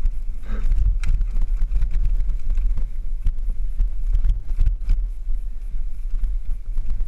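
Mountain bike ridden over a rough dirt singletrack, heard from a camera on the bike or rider: a constant low wind rumble on the microphone, with frequent short rattles and knocks from the bike jolting over bumps.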